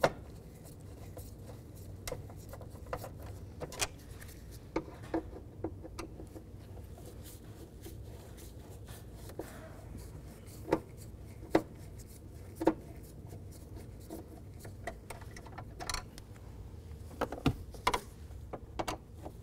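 Hand screwdriver working screws out of plastic dashboard trim: scattered light clicks, scrapes and taps of the tool, screws and panel, with a few sharper clicks near the end, over a low steady hum.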